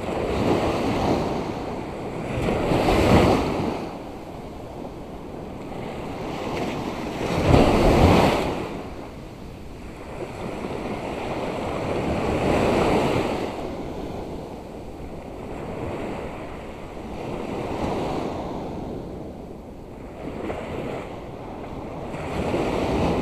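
Surf on a sandy beach: waves breaking and washing up the shore in swells every four to five seconds, the loudest about three and eight seconds in.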